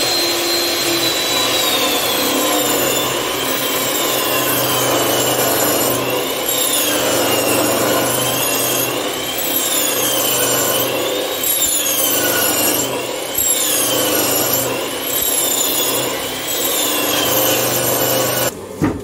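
Table-mounted high-speed power tool cutting along a wooden door-frame board as it is fed across the table: a high motor whine that sags and wavers in pitch again and again under the load of the cut. It stops abruptly near the end.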